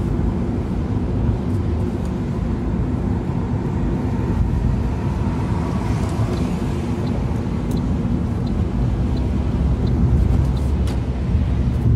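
Steady road and engine noise inside a Toyota car's cabin while driving on a wet road: a low rumble with tyre hiss and a few faint clicks near the end.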